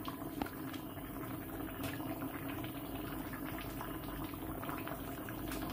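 Thick roasted red-pepper ajvar simmering and bubbling in a large pot, steady with many small pops, as a wooden spoon stirs through it.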